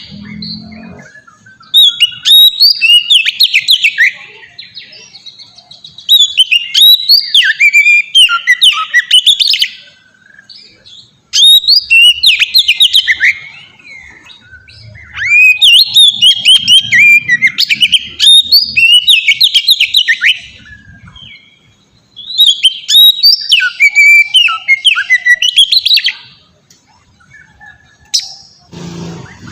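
Oriental magpie-robin (kacer) in full, open 'ngeplong' song. It sings loud phrases of quick, varied whistles and trills, each lasting a few seconds, with short pauses between them.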